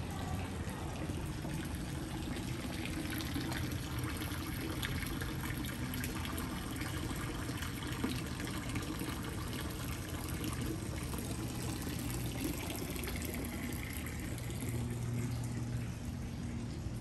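Water trickling and splashing steadily in a small courtyard fountain.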